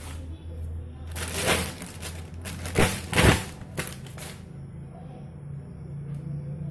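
Three short bursts of rustling, crunching noise over a low steady hum.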